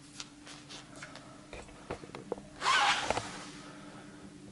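Handling noise: scattered small clicks and rustles, with one louder brief rustle about two and a half seconds in, over a faint steady hum.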